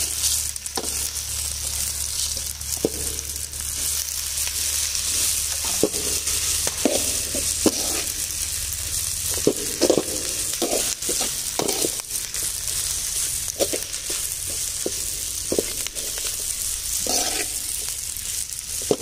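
Onions, curry leaves and dried red chillies sizzling in hot groundnut oil in a large metal kadai. A perforated ladle scrapes and knocks against the pan at irregular moments as it stirs.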